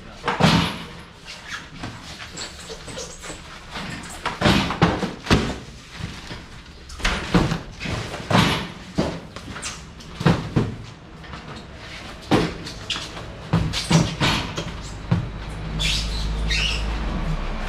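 A string of sharp knocks and bangs, irregularly spaced, with a low rumble coming in near the end.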